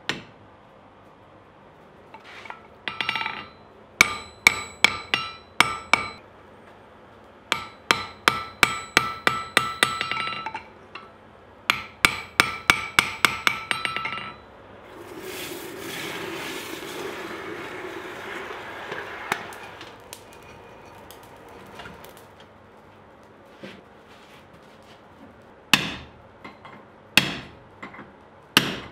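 Hand hammer forging red-hot steel on an anvil and in a vise: runs of quick, ringing metallic blows, about four a second at their fastest. In the middle the blows stop for a steady rushing noise lasting about five seconds, and a few more blows come near the end.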